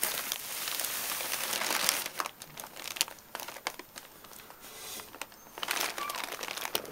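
Close rustling and crinkling as the phone's microphone rubs against a dog's shaggy coat and a blanket, with scattered sharp clicks; loudest in the first two seconds and again near the end.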